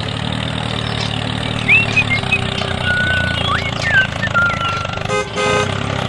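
Tractor engine running steadily with a low hum, with a few short whistling chirps over it and a horn tooting twice about five seconds in.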